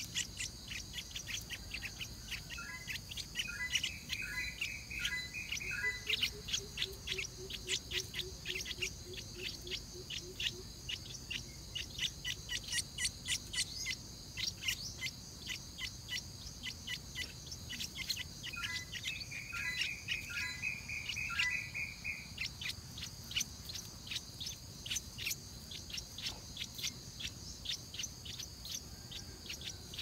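Stripe-throated bulbul fledglings giving rapid, repeated short chirps, the begging calls of hungry chicks waiting for a parent, over a steady high-pitched insect drone. Twice a short warbled bird song phrase stands out over the chirping.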